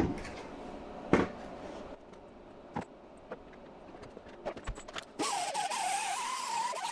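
A few knocks and clicks of handling, then about five seconds in a power grinder starts and runs with a wavering whine, cleaning body filler off a steel quarter-panel piece.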